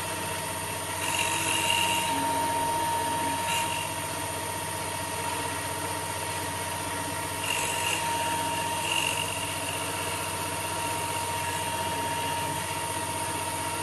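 Small 775 DC motor power spindle running steadily at low voltage, a constant whine. It gets briefly louder and harsher twice, about a second in and again near eight seconds.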